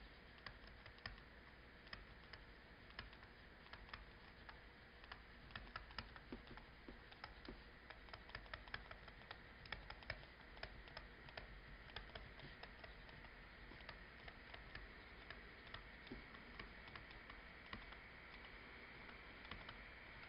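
Faint, irregular clicks and taps of a pen on a writing surface as a diagram is sketched, over a quiet room hiss.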